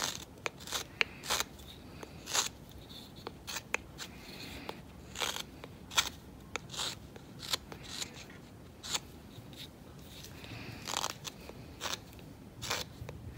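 Carving knife whittling dry linden wood: a run of short slicing cuts, unevenly spaced, as the blade pares chips around a rounded knob.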